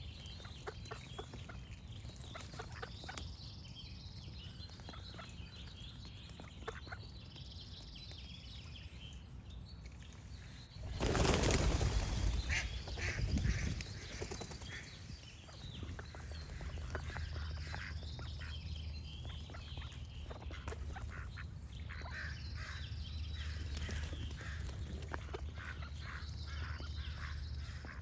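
Ducks quacking among small songbirds chirping. About eleven seconds in comes a loud rushing burst lasting some three seconds, like wings flapping.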